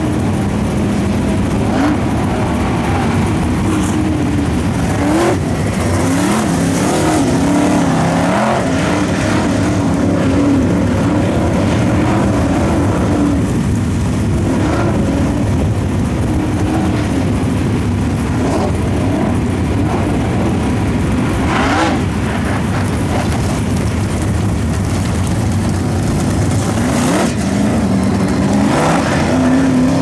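Dirt late model race car's V8 engine running hard on practice laps, its pitch rising and falling again and again as it speeds down the straights and backs off for the turns.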